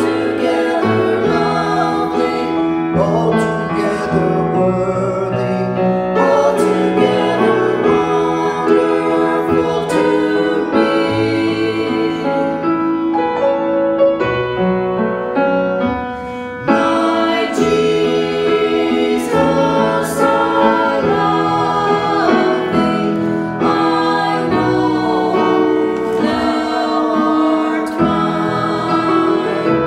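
A small mixed group of three voices, two women and a man, singing a worship song to grand piano accompaniment. About halfway through the song ends with a brief drop in level, and the piano and voices start straight into a slow hymn.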